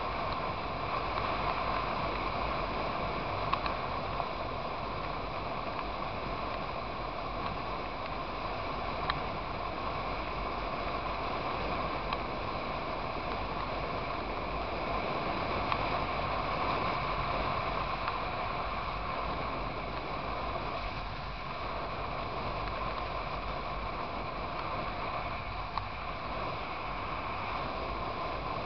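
Motorcycle cruising at steady highway speed: an even rush of wind and engine and tyre drone, with a few faint ticks.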